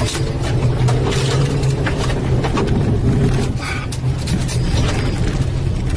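Car engine running, heard from inside the cabin as the car drives over a dirt forest track, with frequent knocks and rattles from the jolts.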